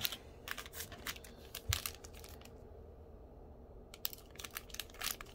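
Foil wrappers of a stack of Donruss football card packs crinkling and clicking as they are handled and squeezed, in two spells with a short pause in between.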